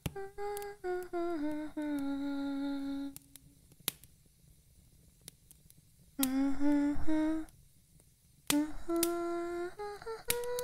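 A woman humming a slow tune in three short phrases, holding long steady notes with small slides between them and pausing briefly between phrases. A few sharp clicks sound now and then.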